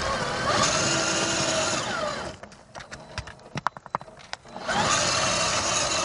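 Electric motor and two-speed gearbox of an RC4WD Trail Finder 2 scale crawler whining as it climbs rocks, the pitch rising and falling with the throttle. The whine stops for about two seconds in the middle, when a few sharp clicks are heard, then comes back.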